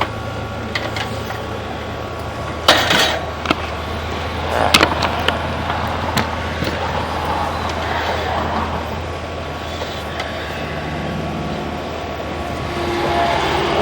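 A steady low engine-like hum, with a few sharp clicks and knocks a few seconds in.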